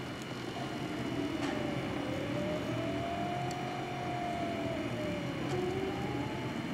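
Prusa i3 3D printer printing: its stepper motors whine in slow rising and falling tones as the print head moves, over the steady whir of its cooling fans, with a few faint ticks.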